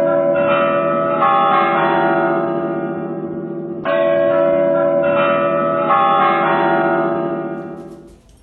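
Clock-tower bells chiming a melody in two phrases, the second starting about four seconds in, with the ringing fading out near the end.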